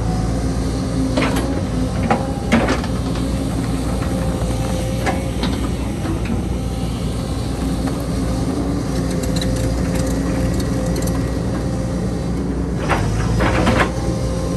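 Diesel engine of a JCB 220 Xtra tracked excavator running steadily while it digs, with a few sharp knocks. Several knocks come close together near the end.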